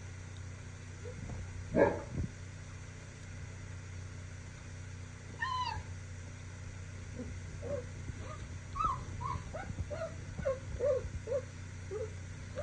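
Three-week-old Cane Corso puppies whimpering and squeaking: a short loud yelp about two seconds in, a high squeal near six seconds, then a run of short whimpers, about two a second, through the last five seconds.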